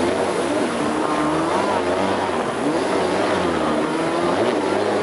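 Jet ski engine running under way, its pitch wavering up and down as the revs change, over a steady rushing noise.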